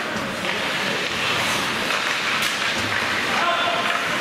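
Steady noisy hubbub of a game in progress: mixed crowd and playing-surface noise with scattered faint knocks, and a short squeak about three and a half seconds in.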